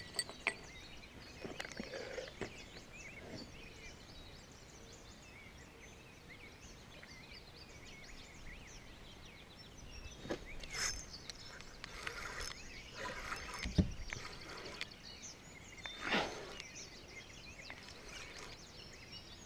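Quiet evening ambience with scattered small bird chirps, broken by several handling knocks and rustles on the microphone, the loudest a dull thump about 14 seconds in.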